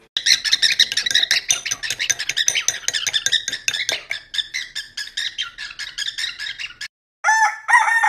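Cockatiel chattering: a fast run of short, high chirps, several a second. After a brief gap near the end, a different parrot gives a short run of clear whistled calls.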